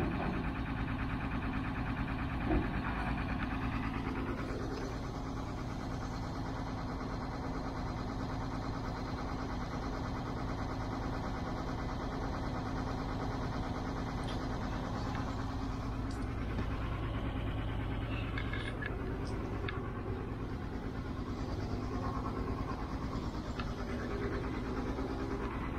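Diesel engine of a DAF 18-tonne tilt-and-slide recovery truck idling steadily, with a single knock about two and a half seconds in.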